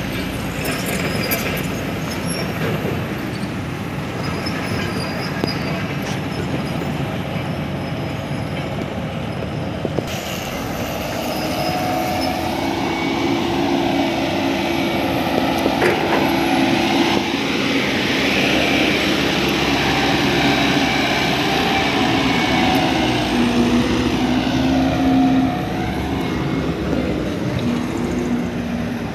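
Diesel dump truck engine running as the loaded truck drives slowly, with a whining tone that rises and falls through the second half.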